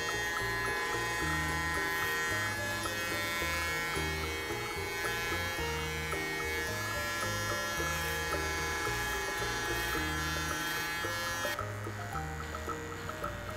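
Electric hair clippers buzzing steadily while trimming hair, with background music playing underneath. The buzz stops suddenly near the end, leaving only the music.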